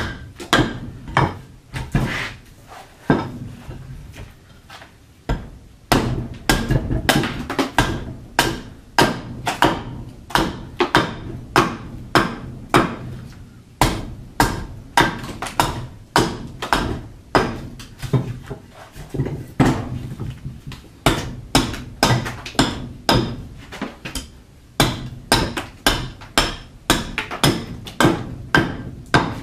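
Carving axe chopping into a block of green, still-wet black walnut set on a wooden chopping stump: a steady run of sharp blows, about two a second. The blows are softer for a few seconds near the start.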